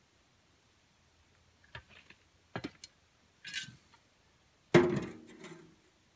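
Dry branches and yard debris handled and dropped into a wheelbarrow: a few knocks and a short rustle, then a louder clatter about five seconds in that rings briefly.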